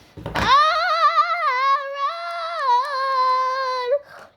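A child's voice holding one long, high, wavering note, sung or wailed, for about three and a half seconds, just after a dull thump at the start.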